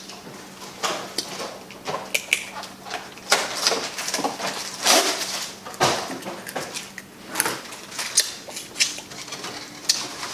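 Crab legs being broken and picked apart by hand: irregular shell cracks and clicks, with close-up eating noises.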